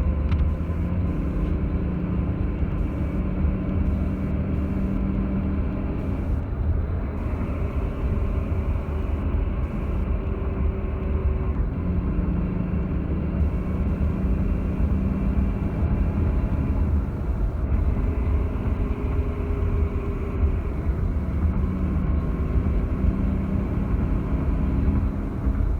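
Car engine running under way, with a heavy low rumble and an engine note that rises and falls several times as the throttle is applied and released. An unusual sound comes when the throttle is let off, which the owner finds weird.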